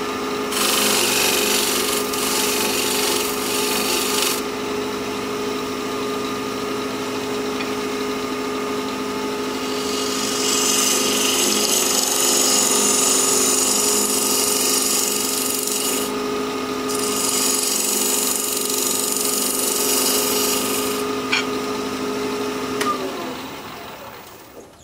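Wood lathe running at about 1400 RPM with a steady motor hum while a half-inch bowl gouge cuts the spinning piece's bottom, hissing shavings in two long passes: from about half a second to four seconds in, and from about ten to twenty-one seconds with a short break near sixteen. Near the end the hum fades away.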